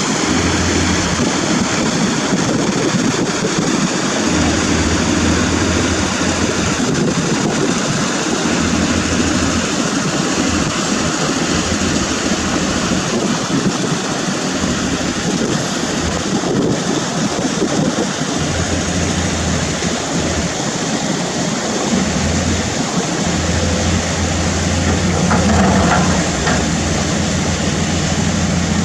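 Dumper truck's diesel engine running as the truck reverses, a steady heavy mechanical drone with a low rumble that swells and drops back several times.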